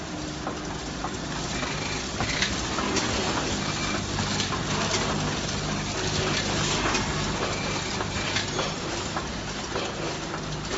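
HTL-420C vertical form-fill-seal snack packing machine running: a steady low mechanical hum under dense clattering and clicking, getting a little louder about two seconds in.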